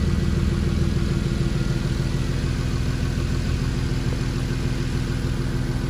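Infiniti G37's 3.7-litre V6 idling steadily under the open hood, an even low hum with no change in speed.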